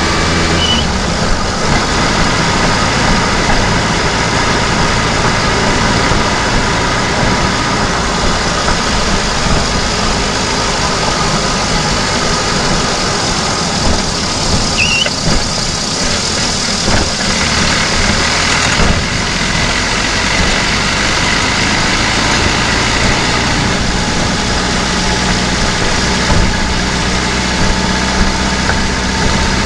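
VAZ-2109 engine running while the car drives, heard from inside the engine bay: a loud, steady mechanical din whose note shifts now and then with engine speed.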